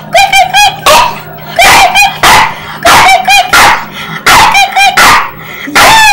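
A puppy yipping and barking, a rapid run of short high-pitched yips in clusters of two or three, with sharper barks in between.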